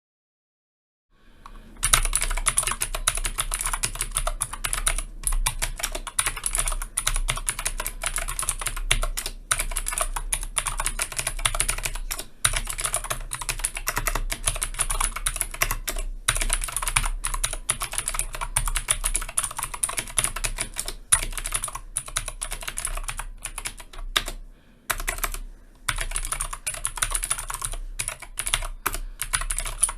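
Keychron K6 mechanical keyboard with clicky blue switches being typed on fast and continuously, a dense run of sharp key clicks. It starts about two seconds in and breaks off briefly a few times.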